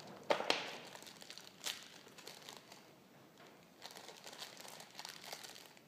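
Clear plastic wrapping crinkling and crackling in the hands as engine bearing shells are unwrapped, with the sharpest crackles in the first two seconds.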